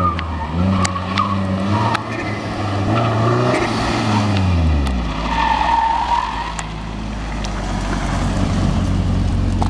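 A drift car's engine revving up and down as the car slides sideways, with brief tyre squeals; after about five seconds the engine settles into a steady low note.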